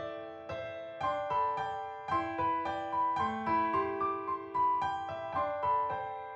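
Background music: a gentle piano melody of separate, decaying notes.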